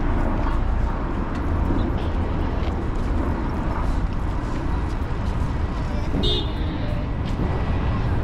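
City street traffic: a steady low rumble of passing cars and buses, with people's voices in the background and a short high-pitched sound about six seconds in.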